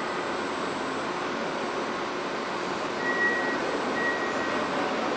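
Steady noise of a Toei 5300 series subway train standing at an underground platform with its doors open. Two short high beeps come about three and four seconds in.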